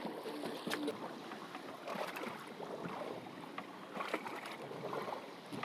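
Bay water sloshing and lapping, an uneven wash of noise with a few small clicks scattered through it.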